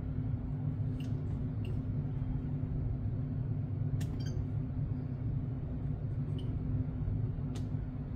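A few faint, sharp clicks, about five spread through, from the ring of a Nest Thermostat E being pressed and turned to scroll through its menus, over a steady low hum.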